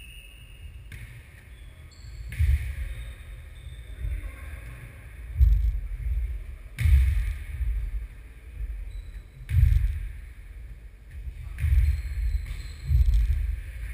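A football-sized ball being kicked and bouncing on a wooden sports-hall floor during a football tennis (nohejbal) rally: about six dull thuds at uneven intervals, each echoing in the hall.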